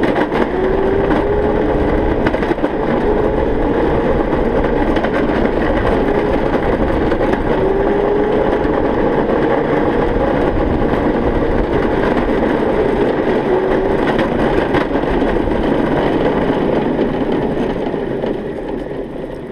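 Razor electric go-kart driving on concrete: a motor whine that rises and falls with speed over the steady rumble of its small tyres and wind, easing off near the end as it slows.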